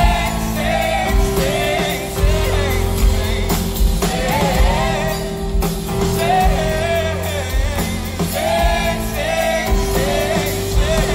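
Male lead singer singing into a microphone with a live band, amplified through a PA: sung phrases of a second or two each over a steady held note and bass.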